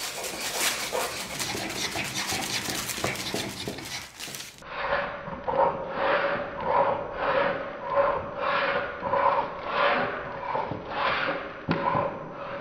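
A block of beeswax is rubbed back and forth over the blade of an upturned old wooden hand plane, shaving it into flakes. At first it is a fast, continuous rasping. After a cut about four seconds in it becomes steady strokes a little under two a second, with a faint steady tone running under them.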